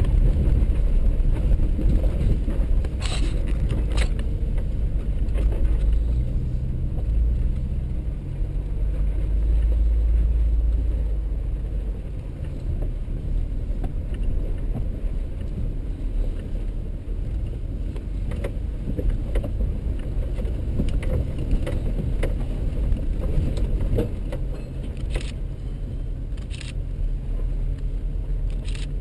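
Off-road 4x4 driving slowly over a rocky dirt trail, heard from inside the cab: a steady low engine and tyre rumble. A few sharp knocks and rattles come about three to four seconds in and again near the end.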